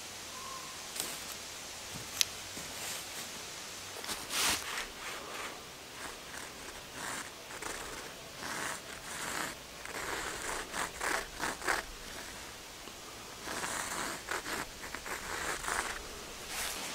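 A carpenter's pencil scratching a line across the sawn end grain of a birch log in a run of short scraping strokes, starting about four seconds in.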